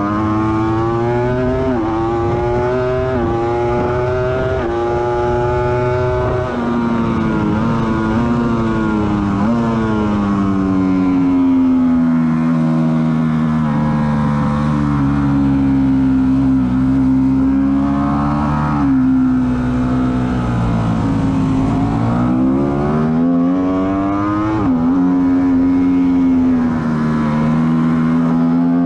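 Ducati sportbike engine heard onboard at track speed, pulling hard through the gears with quick upshifts in the opening seconds. Midway it eases off for corners with downshifts, holds steady, then revs up again, with steady wind rush underneath.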